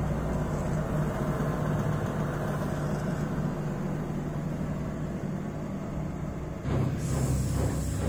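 Bosch front-load washing machine spinning at 1,000 RPM, a steady low drum hum. About seven seconds in the sound grows louder and rougher.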